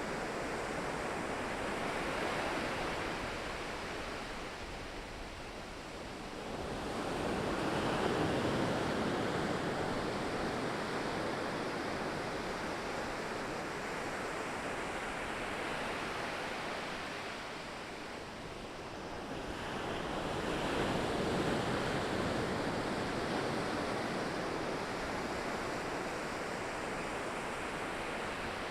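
Ocean waves breaking on the shore, a steady wash of surf with two bigger waves breaking, one about seven seconds in and another about twenty-one seconds in, each then slowly fading.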